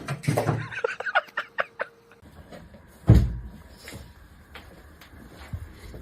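Knocks and clatter: a quick run of sharp clicks and taps in the first two seconds, a single heavy thump about three seconds in, then a few lighter knocks.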